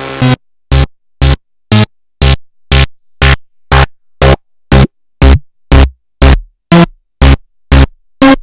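Doepfer analog modular synthesizer playing a steady pattern of short percussive hits, two a second, with silence between them. From about five seconds in, some hits carry a brief low bass tail.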